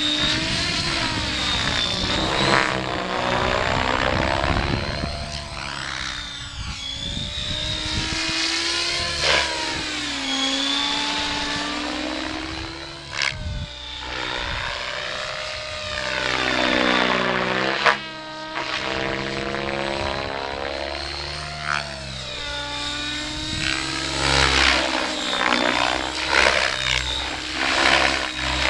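E7 radio-controlled helicopter flying slow 3D manoeuvres. The rotor and motor note sweeps up and down in pitch as it swoops and turns, over a thin, steady high whine.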